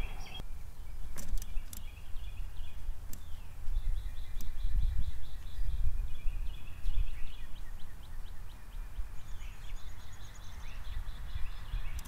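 A small songbird singing in the background: a quick run of evenly repeated high notes, about four a second, lasting several seconds, over a steady low rumble of wind on the outdoor microphone. A few sharp clicks sound about a second in.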